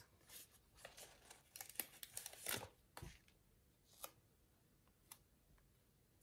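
Faint paper rustling as a sticker is peeled from its sticker sheet, in short bursts over the first few seconds, followed by two light clicks about four and five seconds in.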